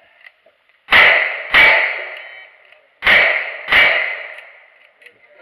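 Four revolver shots fired in two quick pairs, each with a sharp report and a ringing tail that dies away over about a second. The gun is a single-action revolver of the kind used in cowboy action shooting.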